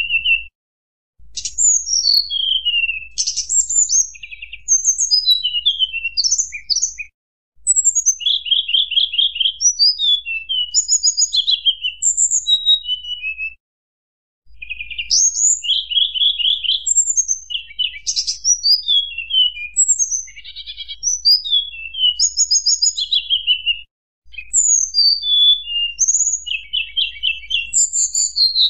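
Tledekan gunung singing: a fast, varied stream of high whistled notes, many sliding down in pitch, mixed with rapid trilled runs. The song breaks off briefly three times.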